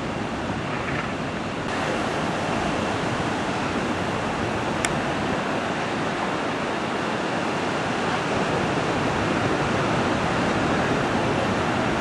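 Ocean surf washing steadily, a continuous rushing noise, with a single sharp click about five seconds in.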